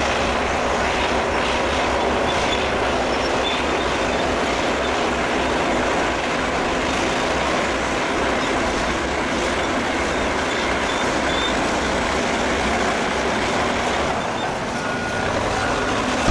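Heavy diesel engines of crawler bulldozers and a wheel tractor-scraper running hard under load while the dozers push-load the scraper: a steady, loud mechanical rumble.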